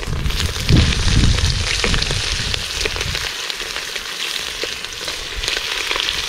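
Pieces of raw goat meat frying in hot oil in a pot over a wood fire, a steady crackling sizzle as they are laid in. There is a low rumble through the first three seconds or so.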